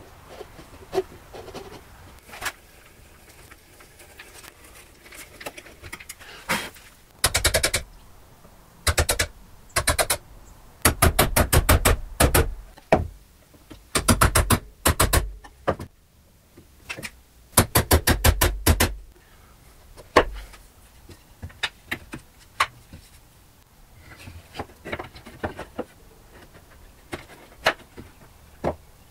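Hand-tool joinery on hardwood: a chisel driven in quick runs of light, rapid taps, several bursts of them through the middle. Scattered single clicks and knocks of tools and wood come before and after.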